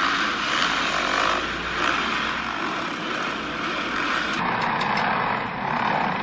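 Dirt bike engines running on an indoor arena dirt track, heard as a steady, echoing drone from several bikes at once.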